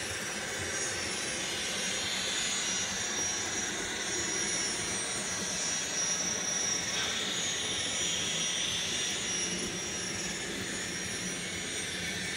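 Sound system of an N scale Union Pacific GTEL gas-turbine locomotive model playing a steady gas-turbine whine and hiss. The sound shifts slightly about seven seconds in.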